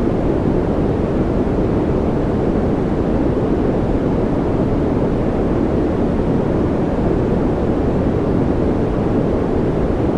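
Steady, unbroken noise, a deep hiss with most of its weight low down and little treble, played as a continuous relaxation sound.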